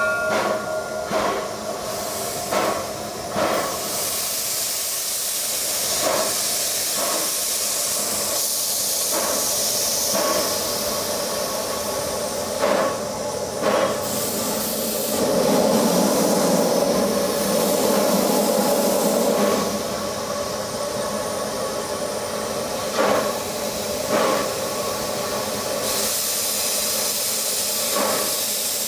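Baldwin steam locomotive venting steam in a loud, continuous hiss from its cylinder cocks, strongest in the middle, with a handful of short sharp puffs on top. Its whistle is just dying away about a second in.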